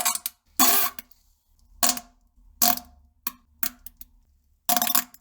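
A string of short farts: about six brief bursts, each under half a second, some with a low buzzing pitch, at irregular gaps.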